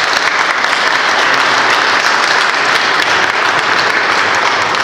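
Audience clapping steadily, tapering off near the end.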